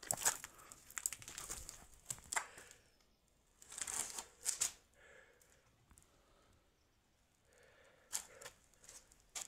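Footsteps crunching over broken clay roof tiles and rubble, in clusters of steps during the first couple of seconds, again around four seconds in and near the end, with quieter stretches between.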